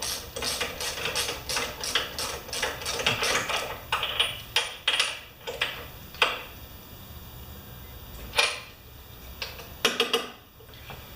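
Hand tools and metal parts being handled: a quick run of clicks and scrapes for the first few seconds, then a few separate knocks.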